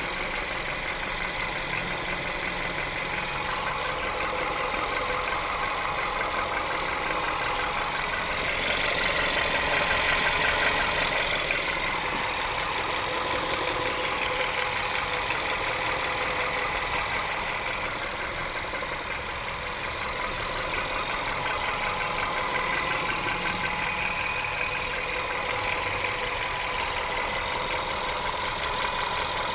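VW Caddy 1.2-litre engine running with a steady whirring from the gearbox area, the complaint being checked. The sound swells louder for a couple of seconds about nine to eleven seconds in.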